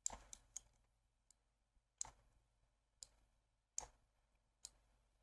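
Faint clicks of a computer mouse: three in quick succession at the start, then single clicks about once a second.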